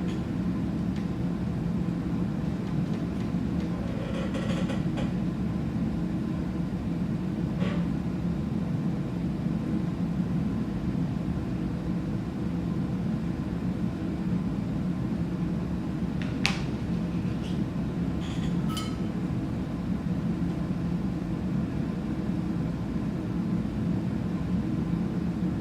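Steady low machine hum, like a fan, with a few faint short clicks of small tools being handled.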